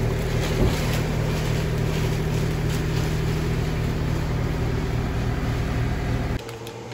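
Meat cooler's refrigeration unit running with a loud, steady hum, with a single knock about half a second in. The hum cuts off suddenly near the end.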